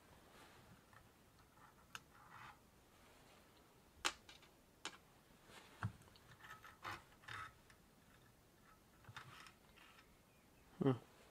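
Faint, irregular metallic clicks and clinks as a washer and other small parts are worked off the axle end of a Sturmey Archer drum-brake hub by hand.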